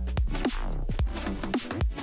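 Electronic background music with a steady beat of deep kick drums that drop in pitch after each hit, plus sharp percussion hits.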